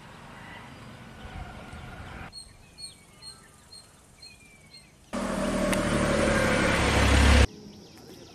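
Spliced outdoor forest ambience. In the middle, faint bird chirps repeat about twice a second with a few gliding whistles. About five seconds in, a loud low rushing noise starts, runs for about two seconds and cuts off into a faint steady high hiss.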